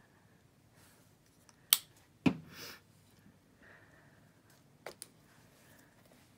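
Plastic craft-paint bottles handled on a tabletop: a sharp click and a knock close together about two seconds in, then two quieter clicks in quick succession near the end.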